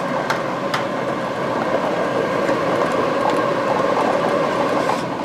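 Air-blown lottery draw machine running, its blowers churning the numbered balls so they clatter and click against the clear chambers. The noise eases off near the end.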